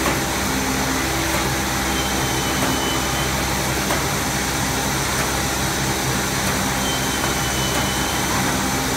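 Single-facer corrugated paperboard production line running: a steady machine drone with a low hum.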